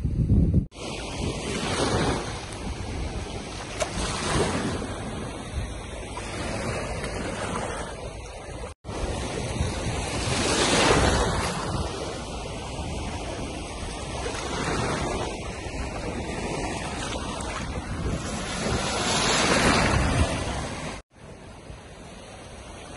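Small waves washing on a shallow beach, with wind buffeting the microphone. The surf swells and eases every few seconds and breaks off for an instant twice.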